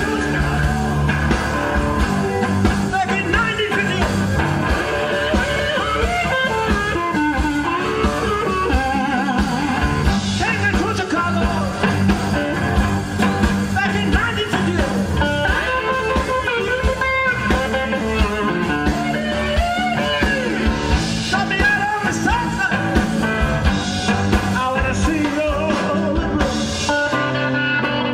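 Live blues-rock: an electric slide guitar playing gliding, fast lead lines over the band's steady bass.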